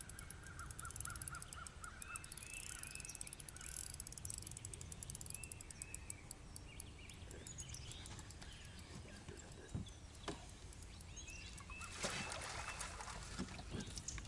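Wild birds calling and singing, including a quick run of short repeated notes about half a second in and scattered chirps throughout. A brief noisy burst comes about twelve seconds in.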